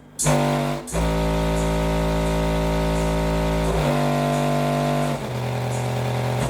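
Music with long, deep held bass notes played through a 12-inch Bulk Audio 1500 RMS subwoofer, the bass note changing about a second in and again near four seconds. The woofer is being run at low gain to break it in.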